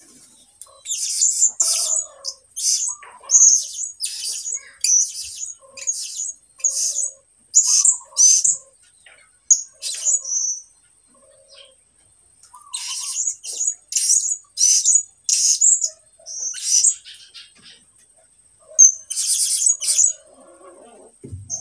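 A caged young songbird sings in two bouts of short, rapid, high-pitched chirping notes with a pause between them. This is a year-old bird still learning its song. A thin, steady high tone runs underneath.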